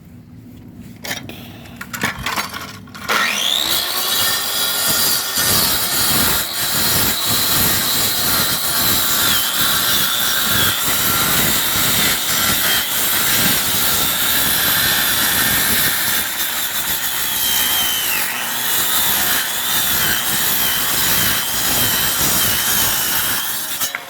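Power saw cutting concrete. A few knocks in the first three seconds, then the saw starts, its high whine rising and settling into a steady cut, with brief dips in pitch as the blade loads up in the concrete.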